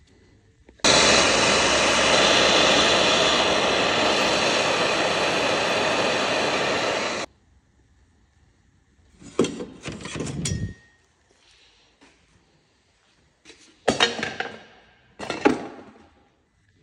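A power tool runs loudly and steadily for about six seconds while the exhaust is taken off, starting and stopping abruptly. Two bursts of knocking and clattering from metal parts follow.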